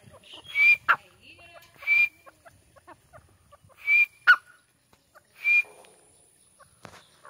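A grey francolin calling: short calls repeated four times, roughly every one and a half to two seconds, each with a whistled note. A couple of the calls are followed by a sharp click.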